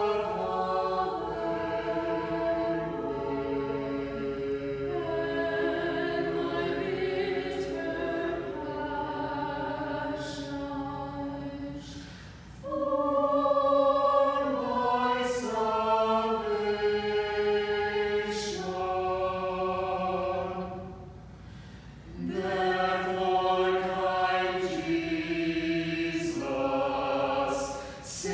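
Small mixed choir of six voices singing unaccompanied in harmony, holding long chords. The singing breaks off briefly twice, about twelve and twenty-one seconds in, between phrases.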